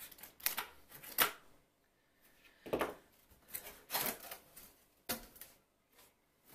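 Cardboard packaging being handled as a box is opened: an irregular run of short scrapes, rustles and light knocks, with a brief pause about two seconds in.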